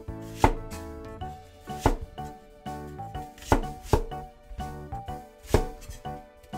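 Chinese cleaver chopping through a white leek onto a wooden cutting board: five sharp knocks, about one every second and a half, over background music.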